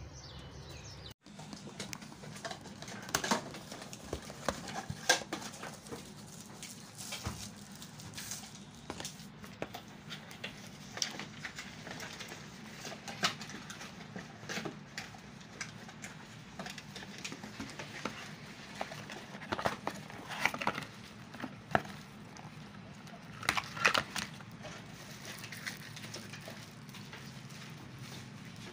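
Unboxing handling noise: a phone, its cardboard box and accessories being lifted, set down and tapped on a glass counter, heard as scattered clicks, knocks and rustles over a steady low hum.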